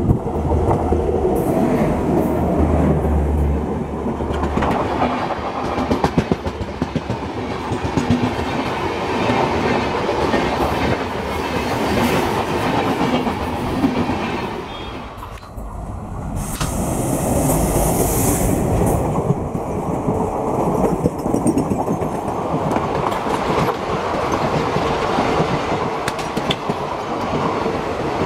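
Indian broad-gauge express trains passing at speed: a WAP-7 electric locomotive and its passenger coaches roll by with a steady rumble and the clickety-clack of wheels over rail joints. A low hum sounds for the first few seconds. The noise drops briefly about halfway through, then another train's coaches pass with the same clatter and a short high hiss.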